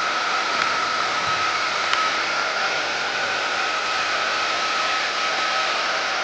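Handheld hair dryer blowing steadily, a constant rush of air with a steady whine from its motor.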